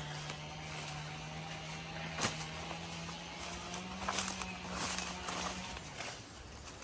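Footsteps pushing through brush and dead leaves, with scattered twig cracks and crackles, over a steady low hum that stops about six seconds in.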